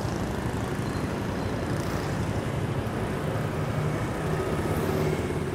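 Steady road traffic noise with a faint low engine hum.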